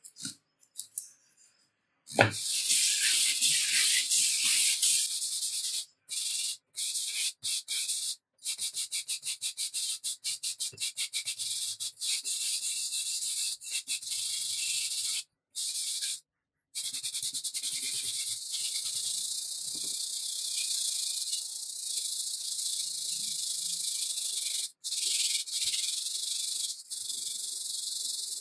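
Sandpaper rubbed by hand back and forth over a rusty steel saw blade, taking off the surface rust: a gritty, high-pitched scrubbing hiss. It starts about two seconds in, and for a stretch in the middle comes as quick short strokes with brief breaks between them.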